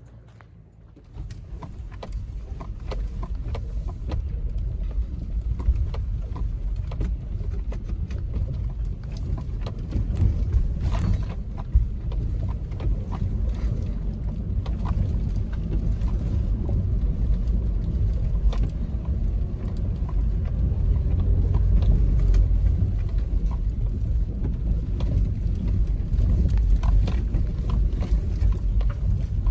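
2018 Toyota 4Runner TRD Off-Road driving a rough trail: a steady low rumble that comes up about a second in, with scattered knocks and rattles.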